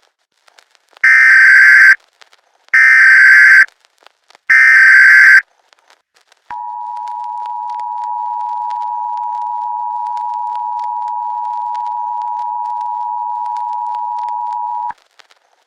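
Emergency Alert System alert signal: three loud bursts of SAME header data tones, each about a second long, then the two-tone attention signal held steady for about eight seconds before it cuts off.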